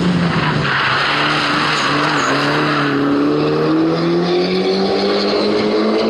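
Mitsubishi Lancer Evo V rally car's turbocharged 2.0-litre four-cylinder engine running hard. The note drops near the start, then rises steadily as the car accelerates away.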